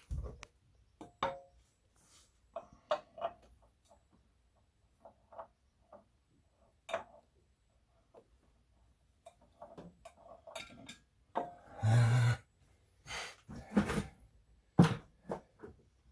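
Scattered clinks, knocks and scrapes of hand tools and metal parts while working loose a stubborn oil filter, with a longer, louder stretch of handling about twelve seconds in.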